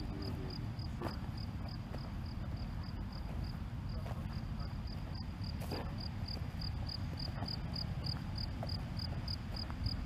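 Insect chirping in a steady high pulse of about four chirps a second, over a steady low rumble.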